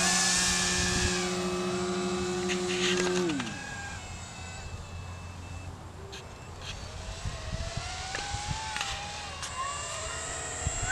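Emax 5335 200kv brushless motor and propeller of a large RC foam-board flying wing, running with a steady high whine that falls in pitch as it is throttled back about three seconds in. A quieter, wavering motor tone follows as the plane cruises at part throttle.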